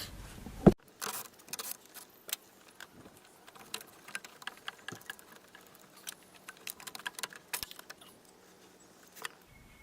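Metal tools and engine parts clinking and tapping at irregular intervals, with one sharp knock about a second in.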